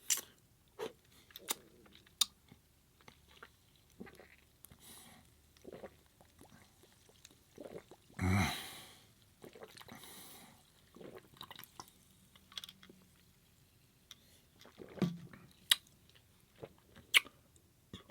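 Close-miked chewing and eating sounds: scattered wet mouth clicks and smacks, with one louder, longer noisy mouth sound about eight seconds in.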